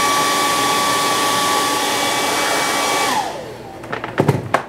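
Handheld hair dryer blowing steadily with a motor whine, drying fresh airbrush paint on a clear Lexan RC body. About three seconds in it is switched off and winds down with a falling whine, followed by a few short knocks.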